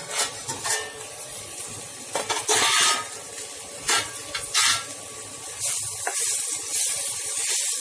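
Clinks of a steel lid being lifted off a steel kadai, then a spatula scraping and stirring a fry of drumstick flowers, potato and brinjal, with the vegetables sizzling in the pan. Sharp clatters come in the first few seconds and give way to a steady sizzle near the end.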